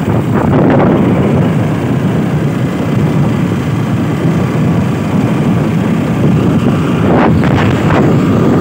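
Wind buffeting the phone's microphone: a loud, unsteady rumble, with a few brief crackles near the end.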